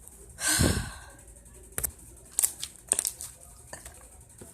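Homemade slime being poked and squished by hand: a soft squelching rush about half a second in, then several small sharp clicks and pops.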